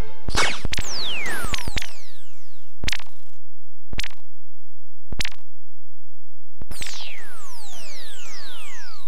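Lightsaber sound effects: a series of sharp hits, several trailing off in falling whistling tones, over a low hum.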